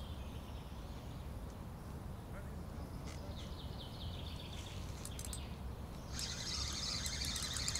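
Small birds chirping in short descending runs over a steady low outdoor rumble. About six seconds in, a dense high-pitched rapid chattering or rattling starts and keeps going.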